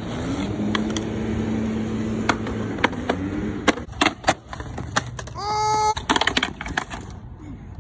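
Skateboard wheels rolling over a concrete sidewalk with a steady low hum and a few clacks, then a cluster of sharp cracks as the board pops up onto a metal handrail about four seconds in. The board grinds along the steel rail with a ringing metallic tone for about half a second, followed by a burst of clattering as the board comes off and hits the concrete.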